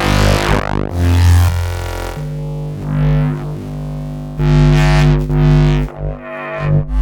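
Designed magnetic sound effects: a run of short humming, buzzing electric swells, one after another every second or two, several with a sweeping rise and fall on top of the hum.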